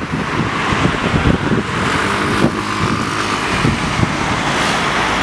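Road traffic passing close by: a steady rush of cars going past, with a motorcycle engine among them.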